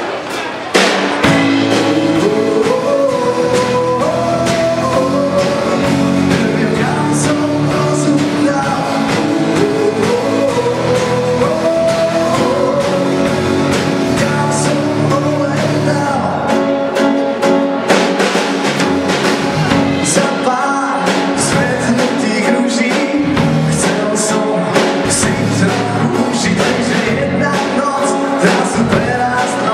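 Live band playing a pop-rock song, starting about a second in: a male singer with acoustic guitar, drum kit and keyboard.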